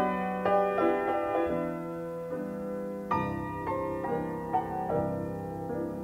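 Background piano music with held chords, a new chord struck about three seconds in.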